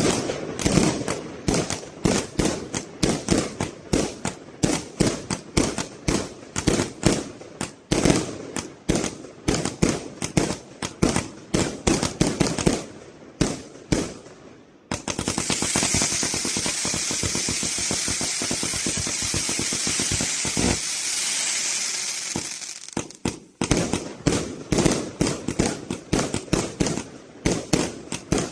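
A 7-inch, 399-shot firework cake firing its tubes in rapid succession, several shots a second. About halfway through the shots give way to roughly eight seconds of steady hissing with fast fine crackle, then the rapid shots resume near the end.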